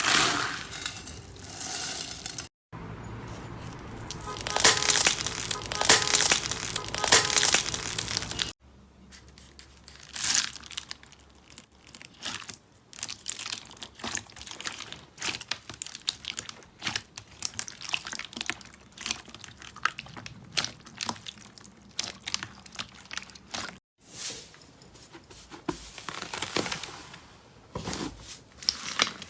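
Slime being squeezed, pressed and poked by hand, giving dense crackling, crunchy popping sounds. The sound changes abruptly a few times as different slimes are handled, loudest between about three and eight seconds in.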